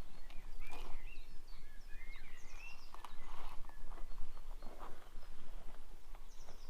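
Birds chirping and singing in short, warbling phrases over steady outdoor background noise, with a few soft scuffs.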